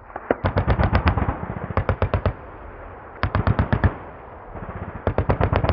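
Automatic gunfire in four short bursts of about five to eight rounds each, firing at roughly eight rounds a second, over a steady low rumble.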